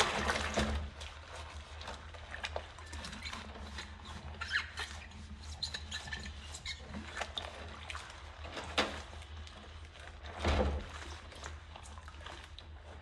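Sponge scrubbing a clear drinking glass in a sink of soapy dishwater: water pouring and sloshing at the start, then wet rubbing, light squeaks and small clinks of rubber-gloved hands on the glass, with a few louder splashes.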